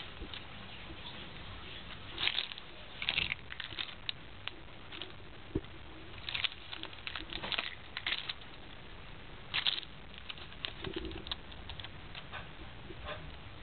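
Irregular short rustles and scratches of a cat's paws and claws on cloth bedding as it bats and bites at a dangling string toy.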